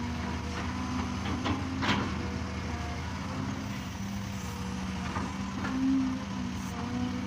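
Heavy earthmoving machinery engine running steadily, with a sharp clank about two seconds in and a brief swell in the engine note near the end.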